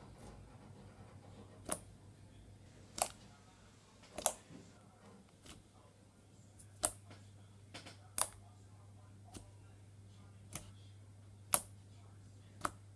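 Slime being played with, giving sharp, irregularly spaced clicks and pops, about eight in all, over a faint steady low hum.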